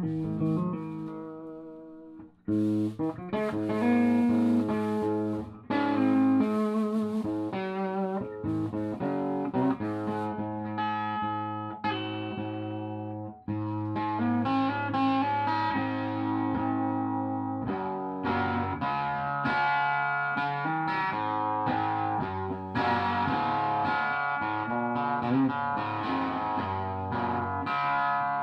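Electric guitar played through a Louis Electric Buster tube amplifier: single notes and chords in phrases, with a few short pauses between them.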